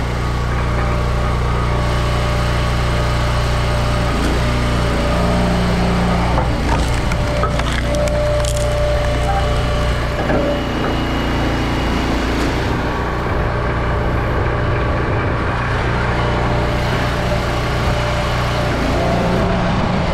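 A log splitter's engine running steadily, its note shifting now and then under load, while hickory rounds split with cracking and splintering wood.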